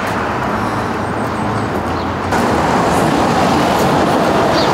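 Steady street traffic noise from passing road vehicles, a little louder from about two seconds in.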